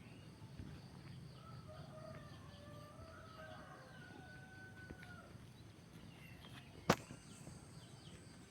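A rooster crowing faintly, one long drawn-out crow lasting a few seconds. A single sharp click sounds near the end, louder than the crow.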